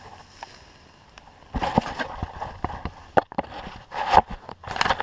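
Footsteps and clothing brushing through tall grass and weeds as a person walks uphill: irregular swishing and rustling, starting about a second and a half in.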